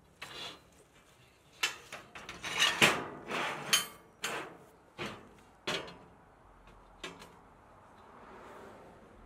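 Steel plates clanking and scraping as they are lifted and stood into place against each other: a quick run of metallic knocks and scrapes, loudest about three seconds in, then two lighter knocks about seven seconds in.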